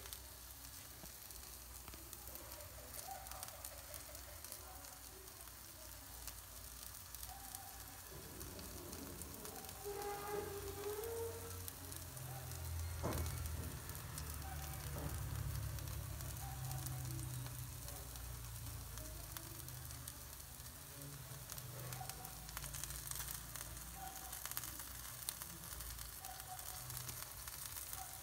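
Chicken leg quarters sizzling and crackling on an electric grill over its glowing heating elements, a steady fine crackle with little spits of fat. A low rumble joins about twelve seconds in.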